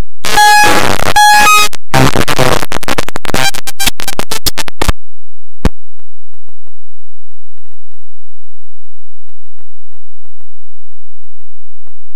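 Harsh, loud electronic noise in bursts, with a buzzing tone in the first second and a half. Then comes rapid crackling that cuts off about five seconds in, and a single click shortly after.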